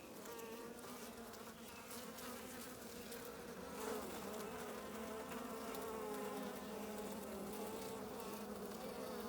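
Honey bees buzzing around an opened hive: a steady hum of many bees with a slightly wavering pitch.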